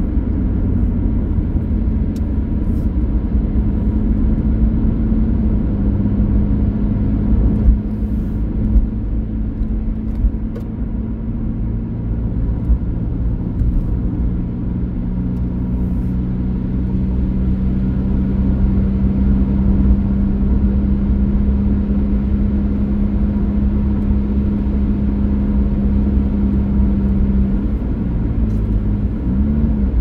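A vehicle engine running at a steady pitch over a heavy low rumble, the pitch bending briefly near the end.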